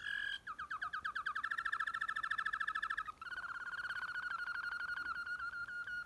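Waterslager canary singing its deep tours: a short held note, then a fast trill of repeated notes lasting nearly three seconds, then after a brief break a lower, smoother rolling trill that runs on.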